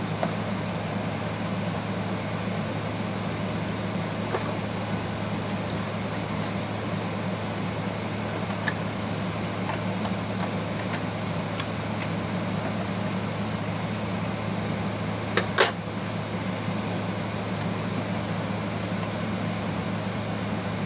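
Steady mechanical background hum, with a few faint small clicks and a sharper double click a little past three-quarters of the way through.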